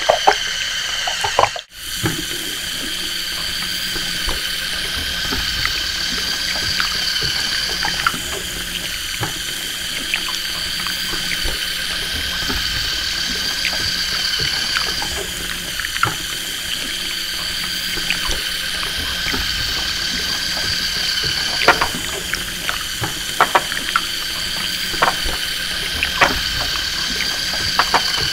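Small LEGO Technic electric motor and its gear train running steadily with a high whine, driving a walker robot's legs, with scattered sharp plastic clicks from the mechanism that come more often near the end. The sound cuts out briefly about two seconds in.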